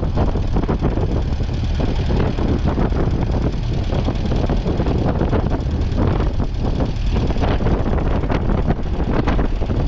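1951 Ferguson TED20's 2.1-litre four-cylinder petrol/TVO engine running steadily under load.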